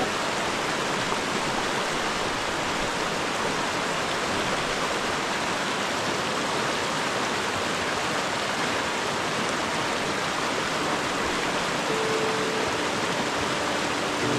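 Rushing creek water tumbling over rocks: a steady, even rush.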